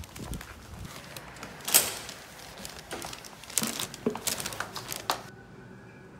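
Plastic packaging crinkling and rustling in a run of short bursts as a takeaway salad box is unwrapped, cutting off abruptly near the end to quiet room tone.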